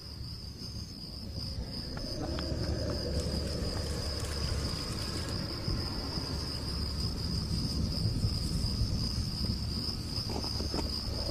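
Crickets trilling steadily in a continuous high-pitched drone, over a low rumble.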